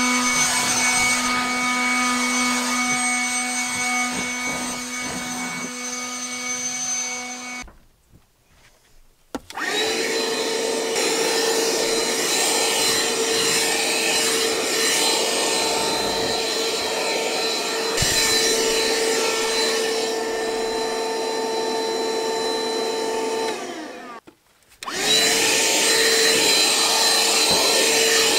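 Ryobi cordless vacuums running. First a stick vacuum with a lower, steady hum stops about eight seconds in. After a short silence a Ryobi handheld vacuum spins up with a higher whine and runs steadily on carpet, cuts out briefly near the end and spins up again.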